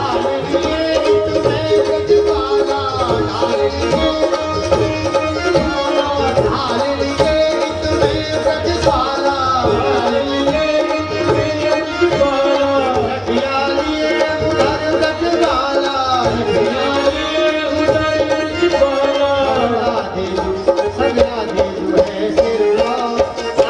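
Live Indian folk music for a dance: a hand drum keeps a steady rhythm under a continuous melody line with bending pitches.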